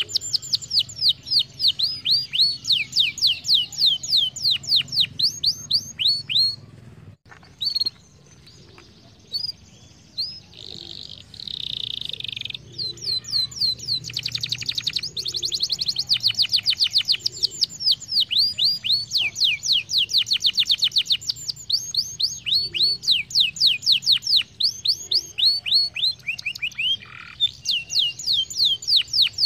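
Canary singing: long runs of fast, repeated down-sweeping whistled notes, several a second. About a quarter of the way in the song breaks off for a few seconds, then a short harsh buzzy note leads into the next run.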